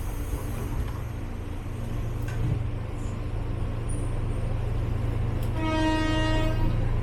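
Train running with a steady low rumble, and one horn blast about a second long near the end.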